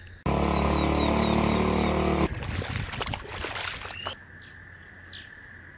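A loud, steady sound with several held tones cuts in and stops abruptly after about two seconds. It is followed by about two seconds of splashing as feet in flip-flops wade through shallow muddy floodwater.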